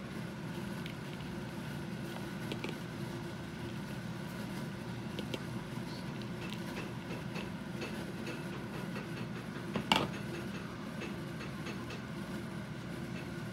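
Light taps and clinks as cubes of bread are tipped from a bowl into a metal baking pan of onions in broth and pushed about with a wooden spoon, with one sharp knock just before ten seconds in, over a steady low hum.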